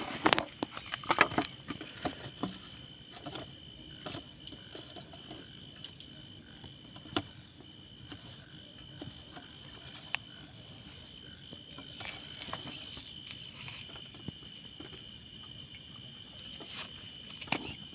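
Crickets chirring steadily, two constant high notes. Sharp knocks and rustles of a plastic jar being handled and laid on the ground come in the first couple of seconds, with a few faint clicks later.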